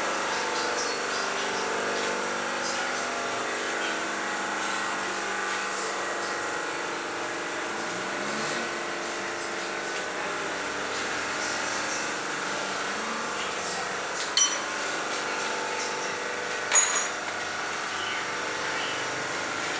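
Car repair workshop noise: a steady mechanical hum with a thin high whine, broken by two sharp metallic clinks of tools about two seconds apart, two-thirds of the way in.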